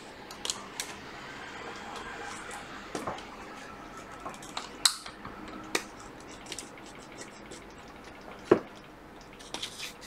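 Scattered small clicks and taps of a plastic pry tool working at the connectors and metal frame of an opened iPad Pro, with a few sharper clicks about five, six and eight and a half seconds in.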